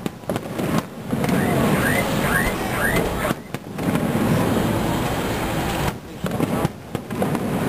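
Aerial fireworks display: shell bursts over a murmuring crowd, with four short rising whistles about two seconds in. The sound cuts out briefly several times, twice as shells burst.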